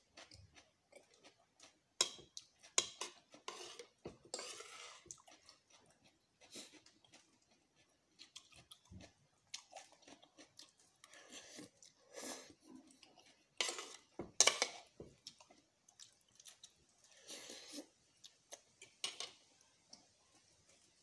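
Eating instant noodles up close: chewing and slurping, with a metal spoon and fork clinking against the bowl. Several sharp clinks come a few seconds in and again in a quick pair about two-thirds of the way through.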